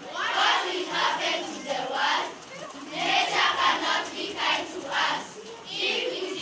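A group of children's voices shouting and chanting together in loud bursts, rising and falling every half second or so.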